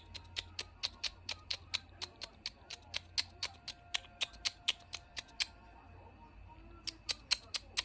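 Rapid, even clicking, about four or five sharp clicks a second, which stops for over a second near the end and then starts again.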